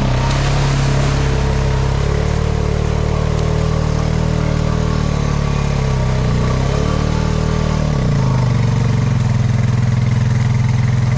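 Farm motorbike engine running under load as it is ridden through floodwater from an overflowed billabong. The engine speed rises and falls, dips about seven seconds in, then holds higher and steadier.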